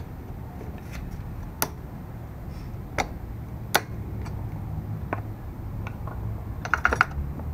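Sharp metal clicks of needle-nose pliers working on the fuel-line fittings at a small-engine carburetor: a few single clicks spaced about a second apart, then a quick run of clicks near the end, over a steady low hum.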